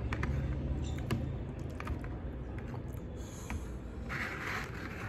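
Light clicks and scrapes of a metal fork against a plastic bowl while picking up noodles, with a short hiss about four seconds in, over a low background hum.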